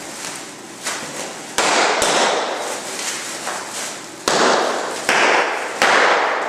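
Packaging being torn open by hand: several loud rips with sudden starts, the last three about a second apart.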